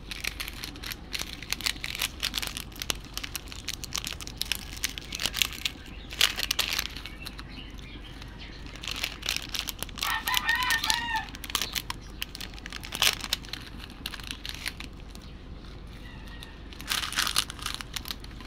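A chicken calls once, a short wavering call about ten seconds in, over a steady low hum and scattered small clicks and crackles.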